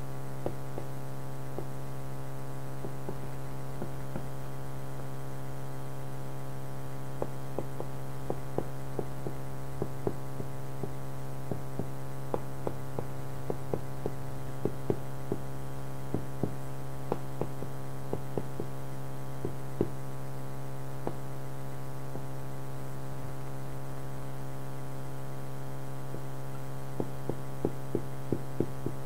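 Steady electrical mains hum with many overtones, over which a marker writing on a whiteboard makes short scattered taps and clicks, coming in clusters with a pause of several seconds near the end.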